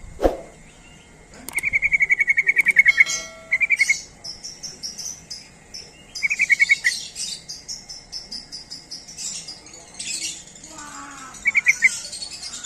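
Yellow-vented bulbuls calling: short, fast rattling trills of repeated notes come again and again, with thin, high chirping chatter over them. A single sharp thump sounds right at the start.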